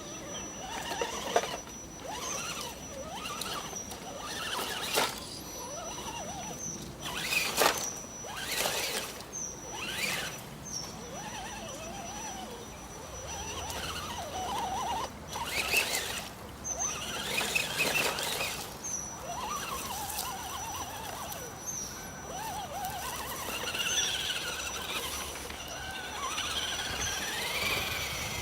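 Small electric motor of an RC crawler whining up and down in pitch as it drives, with scattered sharp knocks and scrapes from the rough ground.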